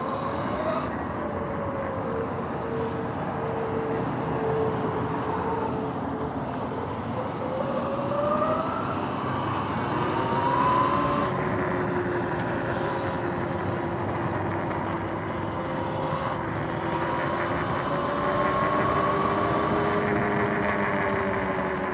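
Sur-Ron Light Bee X electric dirt bike under way: the motor and freshly replaced chain drive whine, the pitch rising and falling as the speed changes.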